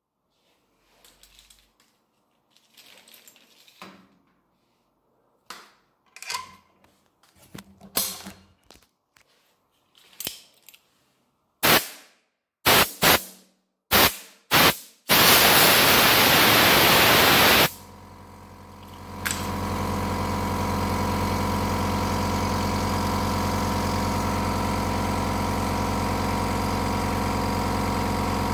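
Five short blasts of compressed air, then one continuous blast of about two and a half seconds. About a second and a half later the 1 hp Stanley Fatmax DST 101/8/6 silent air compressor starts and runs steadily.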